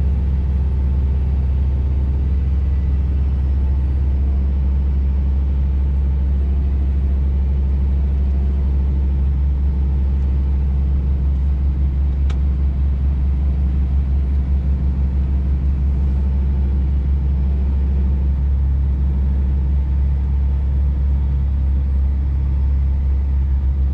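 Scania truck's diesel engine heard from inside the cab: a steady low drone as it pulls the rig up a snow-covered hill.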